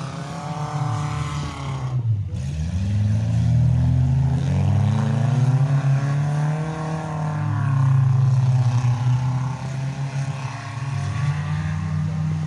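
Demolition derby car engines revving hard, their pitch rising and falling over and over, above a steady low engine drone.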